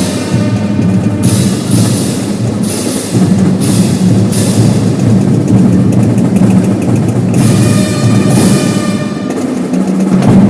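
Marching drum band playing: snare and bass drums over a sustained band sound, with cymbal crashes every second or so through the first half and again near the end.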